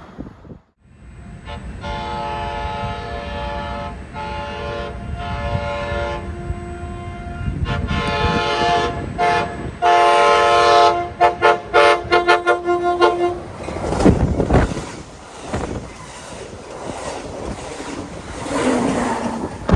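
Amtrak Pacific Surfiner locomotive's multi-note air horn sounding a horn show: a series of long blasts, then a rapid string of short toots about eleven seconds in. The horn stops near the end and the train's low rumble continues, with a loud thump about a second later.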